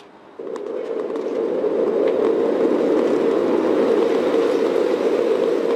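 Underwater hydrophone recording played through a phone's speaker: a steady rushing rumble with a faint hum held at one pitch, swelling over the first couple of seconds and then holding level.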